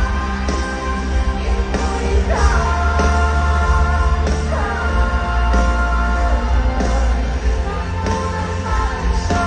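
Live rock music from a concert band over a stadium sound system: heavy bass and steady drum hits under held melody lines that slide downward twice.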